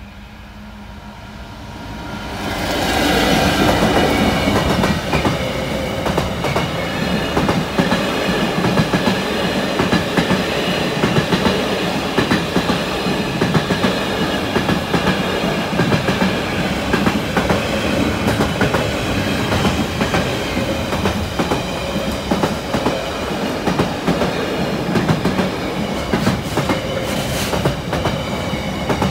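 A Class 66 diesel-electric freight locomotive's two-stroke V12 engine swells to full loudness in the first three seconds as it passes at speed. A long container freight train's wagons follow, their wheels clattering and clicking steadily over the rails.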